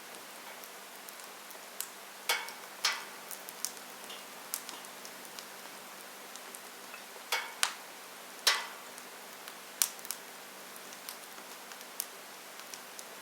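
Wood fire in a fireplace crackling: irregular sharp pops and snaps from the burning logs, a few loud ones among many faint ticks, over a steady hiss of white noise.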